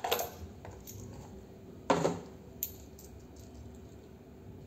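Small metal objects, most likely coins, clinking: a few light clicks and one louder metallic clack about two seconds in.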